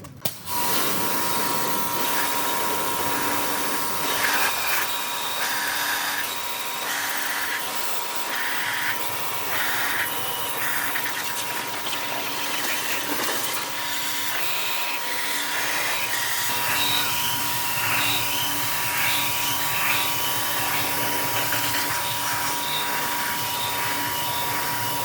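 An electric power tool's motor running steadily with a constant high whine, with short uneven bursts of higher-pitched noise where the tool works against the part.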